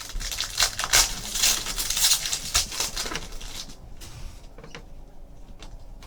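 Foil wrapper of a trading card pack crinkling and tearing as it is ripped open, a dense crackle for about three and a half seconds, then a few light clicks as the cards are handled.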